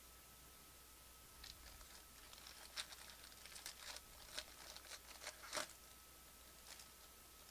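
Foil trading-card pack wrapper being torn open and crinkled by hand: faint crackles and rips from about a second and a half in, the loudest near the end, then one last small crinkle.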